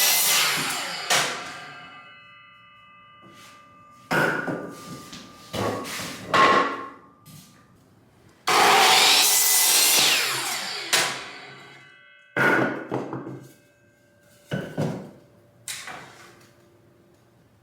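Electric saw cutting through wooden boards twice, the blade whining down slowly after each cut, with wooden clunks and knocks in between as boards are handled and repositioned.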